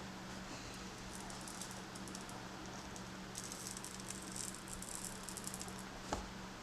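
Faint crackling and ticking as the tablet's cracked, taped digitizer glass is pried off its adhesive with a plastic card, heaviest in the second half, with one sharp knock near the end over a steady low hum.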